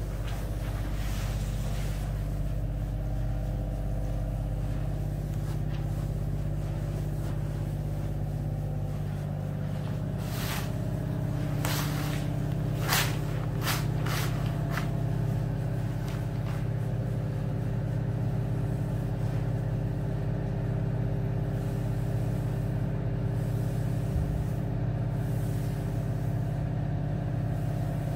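Steady low drone of the concrete-pumping machinery running, carrying on evenly throughout, with a few sharp clicks and knocks around the middle.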